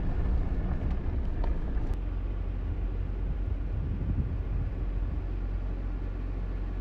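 An offroad vehicle driving on a dirt track, heard from inside the cab: a steady low rumble of engine and tyres on gravel.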